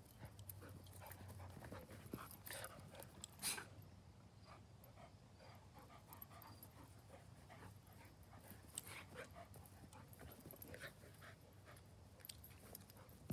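Two dogs play-wrestling on grass: faint panting and scuffling, with scattered small clicks and one sharper click about three and a half seconds in.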